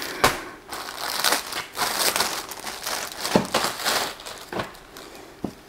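Packaging being handled while garments are unpacked: irregular rustling with a few sharper crackles, dying down near the end.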